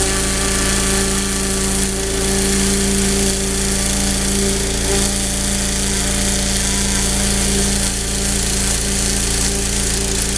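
3000 psi pressure washer running steadily, its turbo nozzle spraying a hissing jet of water onto a deer hide.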